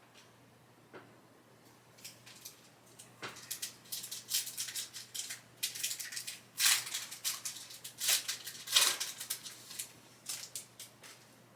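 Foil trading-card pack wrapper being torn open and crinkled, with cards rustling as they are pulled out and handled: a run of short crackles that builds after a couple of seconds, loudest just past the middle, then thins out near the end.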